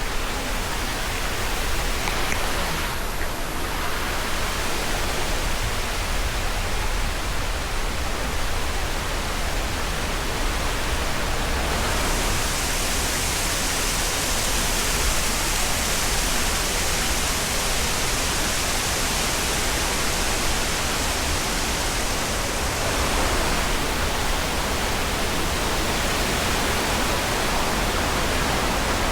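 Steady rushing noise with no break, turning brighter and hissier about twelve seconds in.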